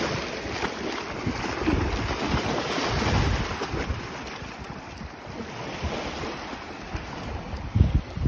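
Wind blowing across the microphone in gusts over small waves washing ashore; the strongest gusts come about three seconds in and just before the end.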